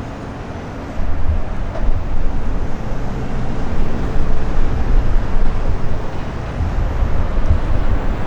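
Gusty wind buffeting the microphone in an irregular low rumble, over a steady wash of street and traffic noise. The gusts get louder about a second in.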